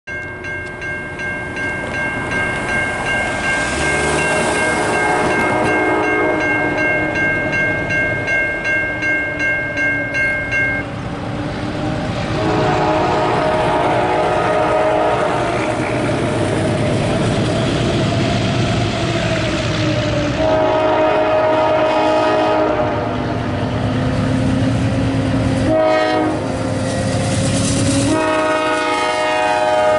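A railroad crossing's electronic bell rings with a steady pulsing for about the first ten seconds, then stops. An approaching GE Dash 9-44CW diesel locomotive then sounds its horn in the long-long-short-long grade-crossing pattern, growing louder as it nears, with the train's rumble building near the end.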